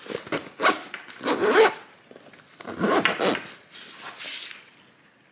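Zipper of a padded DJI drone shoulder bag being pulled closed in about four rasping strokes, the strongest about one and a half and three seconds in.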